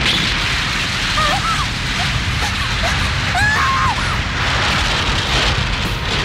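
Continuous rumble of explosions and crumbling rubble as a bridge is blown apart, a dense, steady blast noise with no single strike standing out.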